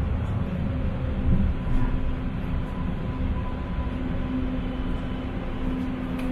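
MBTA Green Line light-rail car running through an underground station into the tunnel, heard from inside the car: a steady low rumble of wheels and running gear with a steady motor hum over it.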